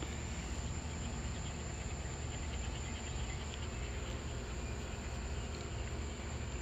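Insects trilling steadily outdoors: one continuous high-pitched tone over a low, even background rumble.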